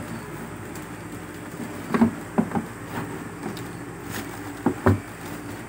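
Short knocks and bumps of parts being handled in a cardboard box and plastic wrap: a cluster of sharp taps about two seconds in and two more near the end, over a steady low hum.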